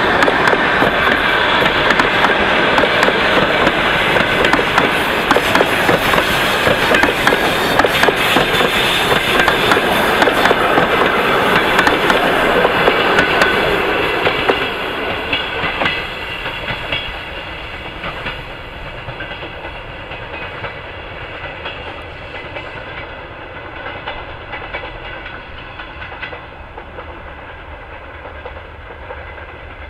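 Passenger train coaches rolling past, their wheels clattering over the rail joints in a dense clickety-clack. About halfway through the sound drops off suddenly, then keeps fading as the train moves away.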